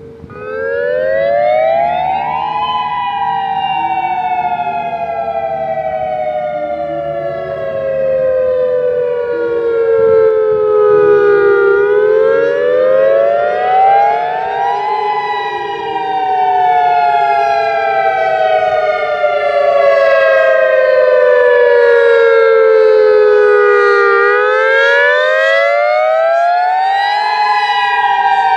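Federal Signal EOWS 612 electronic outdoor warning siren starting its attack (wail) signal. A two-tone pitch rises quickly over about three seconds, then sinks slowly over about nine seconds, and the cycle repeats. Other tornado sirens sound faintly in the background, one holding a steady tone.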